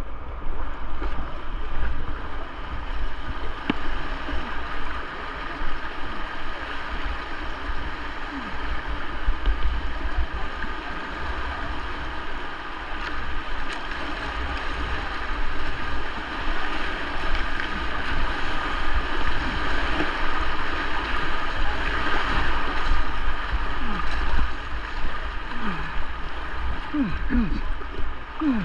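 River running fast in very high water: a steady rush of water, with a heavy low rumble underneath.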